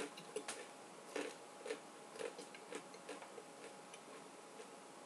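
Freshly baked soda bread, its crust crackling with small irregular clicks, about two a second, as a piece is pulled apart and picked at with the fingers. The clicks thin out and grow fainter in the last second or so.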